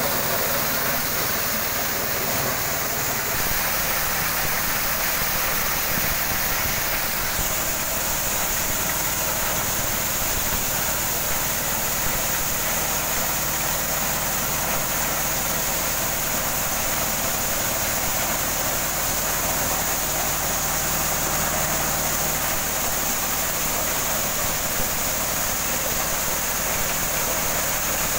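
Corn sheller driven by a small single-cylinder diesel engine, running steadily under load as cobs are threshed, with a continuous rushing rattle of shelled kernels pouring from the chute.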